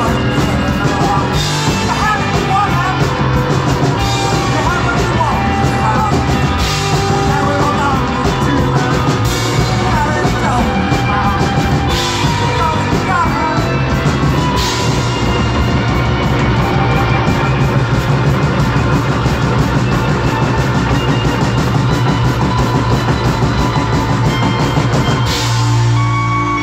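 Live rock band playing: electric guitars, bass and drum kit through a club PA. Near the end the drums and most of the band stop, leaving a held chord ringing.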